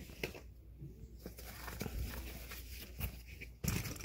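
Rummaging by hand through a packed fabric tool bag: scattered soft knocks and rustles as tools and gloves are shifted and lifted out, with a louder bump near the end.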